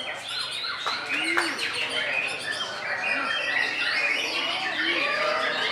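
White-rumped shama (murai batu) singing a fast, varied run of whistles and chirps, with more birdsong overlapping it.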